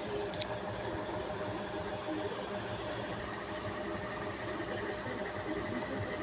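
A steady machine hum with a faint constant tone running under it, and one sharp click about half a second in.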